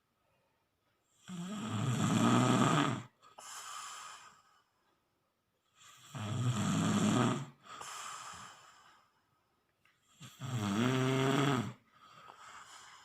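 Snoring: three loud, buzzing snores on the in-breath, about four and a half seconds apart, each followed by a quieter breath out.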